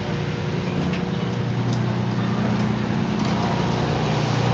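Fire engine's motor running steadily, a constant low drone that grows louder toward the end.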